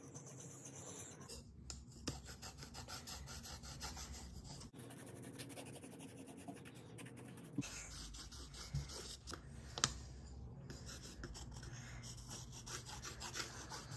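Steel tweezer tips being sharpened, rubbed back and forth on a sharpening stone: a faint, quick run of scratching strokes.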